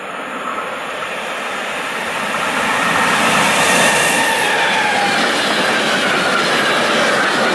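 Red DB electric freight locomotive approaching and passing close at speed, hauling empty double-deck car-transport wagons. There is a steady rush of wheels on rails that grows louder over the first three seconds, then holds as the wagons run past, with faint squealing tones from the wheels.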